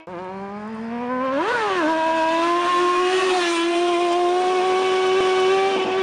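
Motorcycle engine revving. Its pitch climbs slowly, jumps up and drops back in a quick blip about a second and a half in, then holds steady at high revs.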